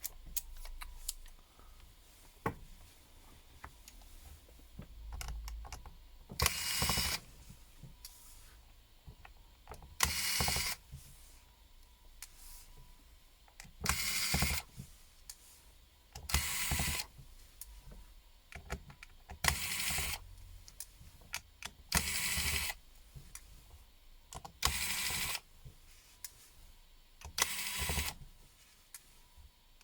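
Screwdriver backing out the tiny screws on an Honor 7S smartphone's back plate. There are short mechanical whirring bursts about every three seconds, eight in all, with faint clicks in between.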